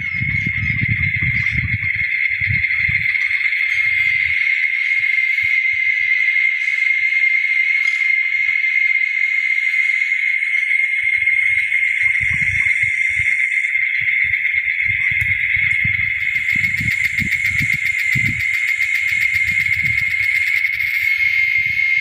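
A chorus of insects buzzing in one steady, unbroken high-pitched drone. A low rumbling noise comes and goes underneath it, through the first few seconds and again over the second half.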